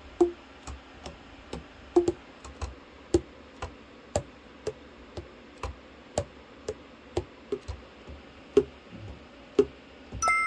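Selmer Reference 54 tenor saxophone keys being pressed and let go, the pads slapping shut on the tone holes in uneven clacks about twice a second, many with a short hollow pop from the body.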